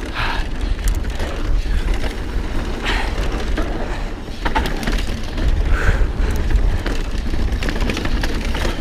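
Mountain bike riding down a dirt trail, heard from a camera on the rider: tyres rolling and the bike rattling over the ground, with wind rumbling on the microphone and a few sharp clatters.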